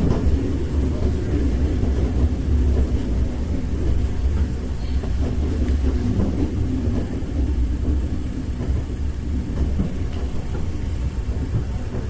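Interior running sound of a 415 series 1500-subseries electric train: a steady low rumble of the car rolling along the track.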